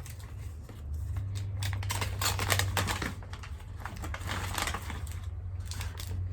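Packaging being handled and unwrapped: irregular rustling with quick clicks and taps.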